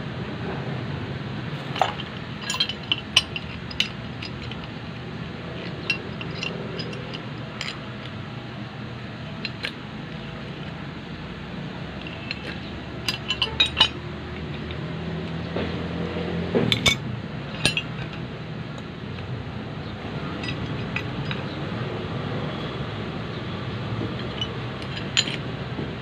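Threaded steel pipe fittings and pipe wrenches clinking and clicking against each other as the fittings are screwed together and tightened. The sharp clinks come in scattered clusters over steady background noise.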